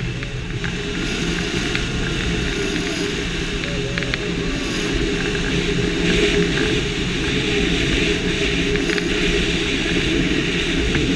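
Wind rushing over the camera microphone in paraglider flight: a loud, steady roar that sits mostly in the low range.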